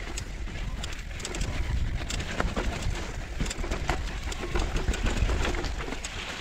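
Mountain bike riding down a dirt trail: tyres rolling over dirt and leaves under a steady low rumble on the camera's microphone, with frequent sharp clicks and rattles from the bike over bumps.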